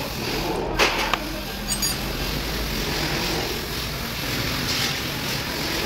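A few short metallic clinks of a hand tool on the rocker arms and valve adjusters of a Volvo D13 diesel engine during valve adjustment, the sharpest about a second in. A steady background noise runs under them.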